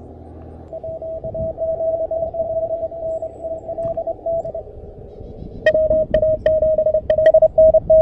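Morse code (CW) signals heard on an Elecraft KH1 transceiver's receiver: keyed beeps at one steady pitch over band hiss. A weaker signal comes first, then a much stronger one about six seconds in.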